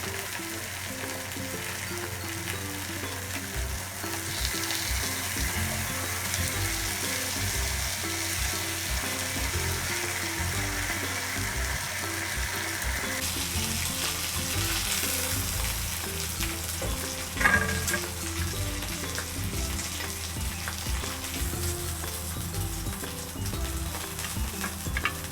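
Food sizzling as it fries in a hot pan, a steady hiss, with one sharp clatter a little past two-thirds of the way through.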